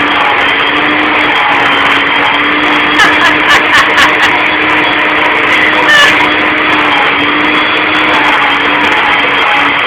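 Handheld electric dog-grooming tool running steadily: a loud, even whir with a constant hum, broken by a few brief clicks about three to four seconds in and again about six seconds in.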